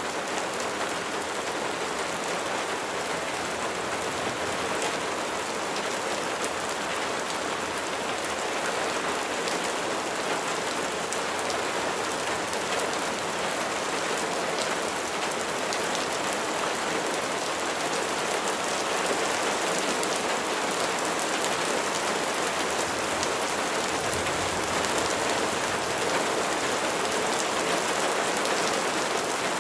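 Steady rain falling on a surface, a constant hiss with many small, sharp drop ticks.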